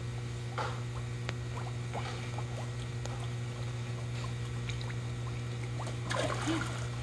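Koi sucking and smacking at the water surface around hands held at the pond edge: a scatter of small pops and clicks, over a steady low hum.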